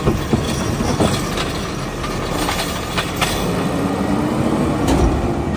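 Engine and hydraulics of a Peterbilt 520's McNeilus Autoreach automated side-loader arm lowering an emptied trash cart, setting it down and retracting, with metallic clanks and knocks from the arm and cart. A rising hum builds near the end.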